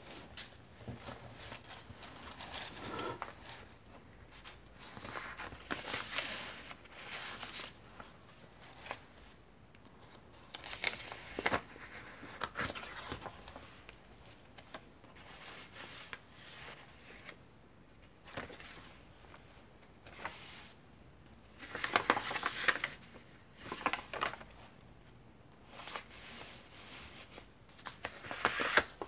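Vintage paper pages of a thick handmade junk journal being turned by hand: paper rustling and crinkling in separate bursts every few seconds, with quiet gaps between. The loudest turn, about three quarters of the way through, has sharp paper snaps in it.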